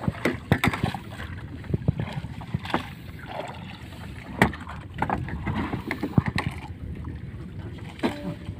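Floating gill net being hauled aboard over the boat's rail and net drum: irregular knocks and clatters of net, floats and fish against the hull, over a steady low rumble of the boat's engine.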